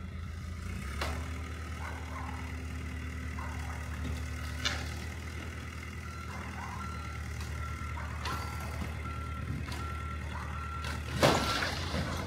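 Caterpillar 935 loader's diesel engine running steadily, with its reversing alarm beeping about twice a second from about six seconds in. Scattered knocks are heard, and a loud bang comes near the end.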